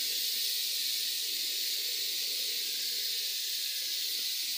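A steady, even hiss that cuts in suddenly and fades out near the end.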